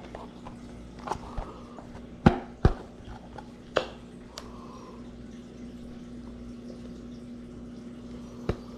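Handling noise from a cured silicone mold being worked out of a plastic container: scattered sharp clicks and knocks, the loudest two close together a little over two seconds in, over a steady low hum.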